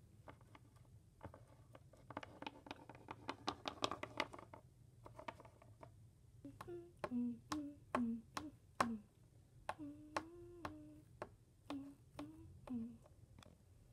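Plastic Littlest Pet Shop toy figures being handled and set down on a tabletop: a string of light clicks and taps. There is a patch of denser handling noise about two to four seconds in.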